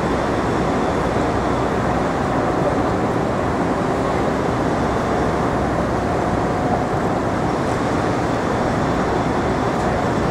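Steady din of city street traffic, an even rumbling noise with no single event standing out.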